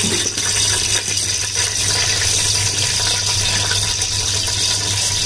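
Hot cooking oil with whole spices sizzling in a pot, a steady hiss, with a constant low hum underneath.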